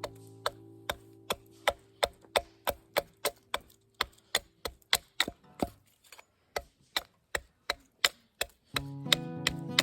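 Knife cutting into a piece of firewood while carving a spoon: a steady run of sharp, crisp strokes, about three a second. Background music fades out about halfway through and comes back near the end.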